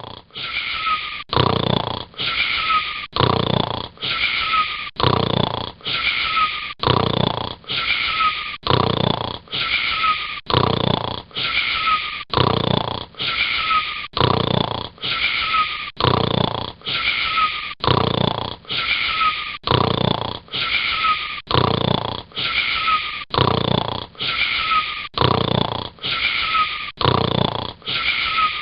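Snoring with a wheeze, very regular at about one snore a second, each snore carrying a short whistle that falls in pitch.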